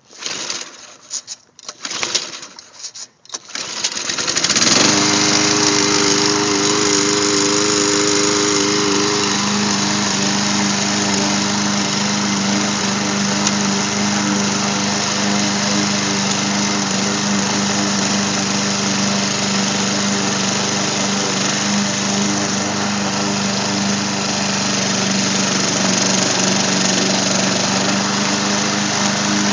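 Small petrol engine of an old walk-behind lawn mower being pull-started: a few seconds of uneven sputters, then it catches about four seconds in and runs steadily. Its note changes about nine seconds in and then holds steady.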